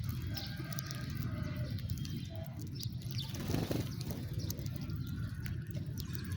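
House sparrows chirping in short, scattered calls over a steady low rumble.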